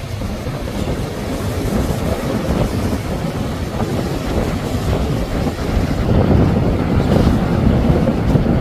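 Powerboat engines and hull spray as boats run at speed through choppy water, with wind buffeting the microphone. The noise grows louder about six seconds in.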